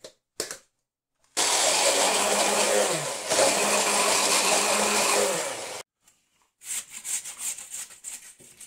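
Small electric mini chopper running for about four and a half seconds as it purees garlic, shallots and chili, its motor pitch sagging briefly midway under the load, then cutting off. Faint knife strokes on a wooden cutting board follow near the end.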